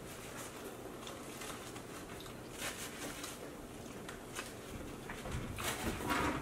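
Close-up eating sounds: faint chewing and crunching of food, with small scattered clicks and crackles, a little louder about three seconds in and again near the end.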